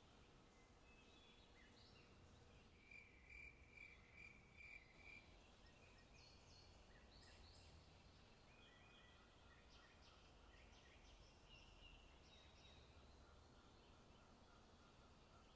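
Faint forest birdsong, with several small birds chirping and whistling at once. About three seconds in, one bird gives a quick run of about six short, even notes, the loudest sound here.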